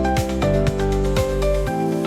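Background music with held notes over a steady beat of struck, thumping low notes.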